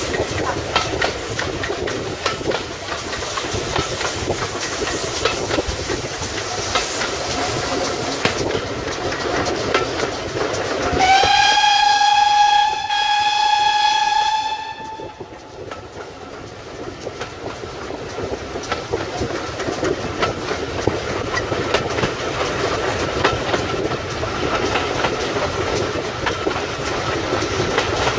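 Carriage of a steam-hauled train running along the line, with wheels clicking over rail joints. About halfway through, the GWR 0-6-0 locomotive 3205 gives one steam whistle blast of about three and a half seconds, rising slightly in pitch as it opens.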